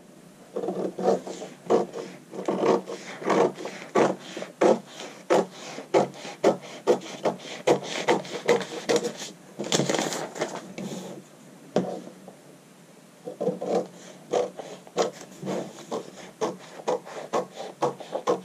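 Scissors cutting through pattern paper in a steady run of snips. Paper rustles about ten seconds in, and the cutting stops briefly and then resumes.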